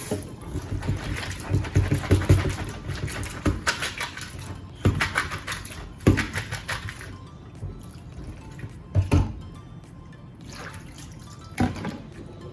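Manila clam shells clicking and clattering against each other as the wet clams are rinsed and handled, with water dripping, in clusters early on and as single knocks later. Background music plays underneath.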